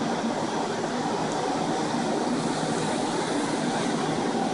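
Restoration air mover (a floor-standing blower fan used for drying out water damage) running, a steady, even rushing whoosh of moving air.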